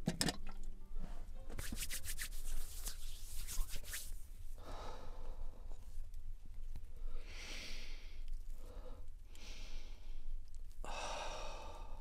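A person's breathing: about four short, breathy puffs a second or two apart, after a patch of light clicking in the first few seconds.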